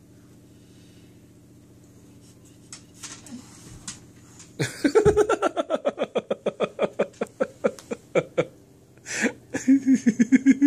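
Quiet room for a few seconds with a few faint knocks, then a person laughing hard in a long run of quick ha-ha-ha pulses from about four and a half seconds in, and another run of laughter near the end.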